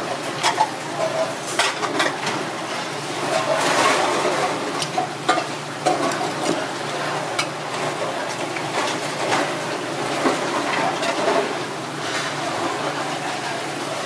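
A sea urchin's shell cracking apart by hand, then a small metal spoon scraping and clicking against the shell as the roe is scooped out. Many short, irregular clicks and scrapes run over a steady low hum.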